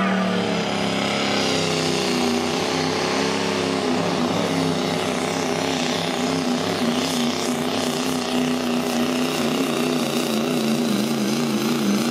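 Diesel GMC pickup's engine pulling a weight-transfer sled at full power, its pitch climbing in the first couple of seconds, then held high and wavering as it works against the sled.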